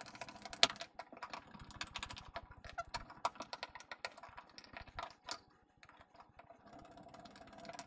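Rapid, irregular small clicks and ticks of a screwdriver turning the small screws of the SD-card cover on the underside of an Amcrest bullet security camera, with the plastic housing being handled. The clicking thins out about five and a half seconds in.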